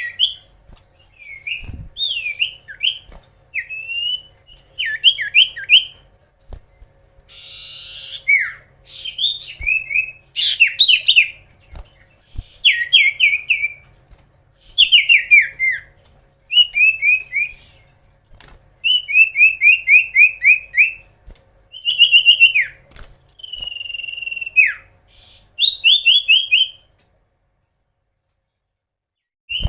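Common iora singing: phrases of rapid, short, downward-sliding whistled notes repeated in quick series, with brief pauses between phrases. The song stops a few seconds before the end.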